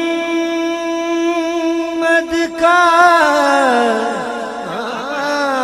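A man singing a naat, an Urdu devotional poem in praise of the Prophet Muhammad. He holds one long steady note, then about three seconds in breaks into a wavering, ornamented run.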